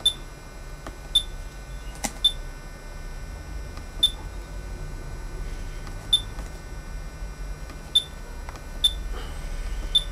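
Front-panel key beeps of an ATTEN ADS1000 digital storage oscilloscope as its menu buttons are pressed: about seven short, high beeps, each with a click, at irregular intervals of one to two seconds over a low hum.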